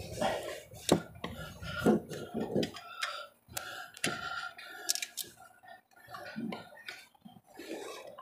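Hands working fuel lines and fittings at a diesel truck's fuel filter head: scattered sharp clicks and knocks of plastic and metal parts over rustling handling noise.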